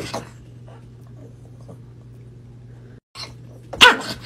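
A small dog gives one loud, sharp yap near the end, looking up at a cat swatting at it from a table above, over a low steady hum.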